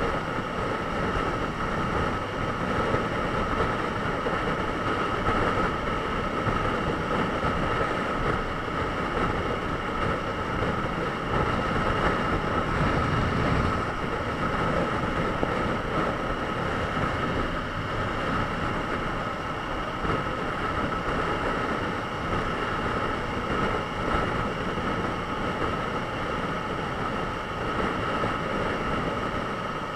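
Honda CBR954RR inline-four sport bike cruising steadily at motorway speed, its engine drone mixed with a steady rush of wind over the fairing and microphone.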